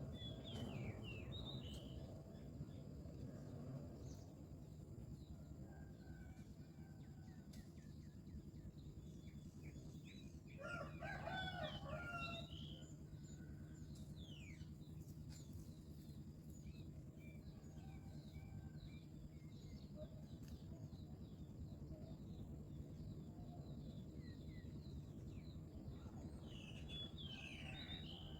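Scattered bird chirps, with one longer, louder call about eleven seconds in, over a steady low hum.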